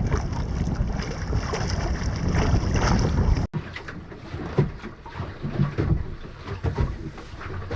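Wind buffeting the microphone over water rushing along the hull of a small junk-rigged Paradox sailboat under way. About halfway through the sound drops suddenly to quieter, irregular splashing and lapping of water.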